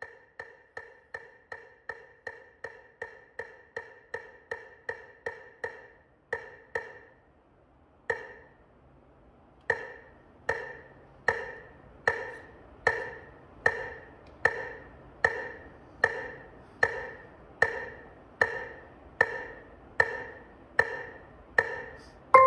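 Metronome ticking steadily at about three beats a second, then a few irregular ticks and a short pause, then ticking again at a slower steady pace of a little over one beat a second.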